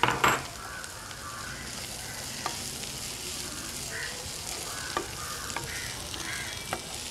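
Minced chicken sizzling in a pan of fried onion masala as it is stirred in with a wooden spatula, with a few sharp knocks of the spatula against the pan and a louder clatter right at the start.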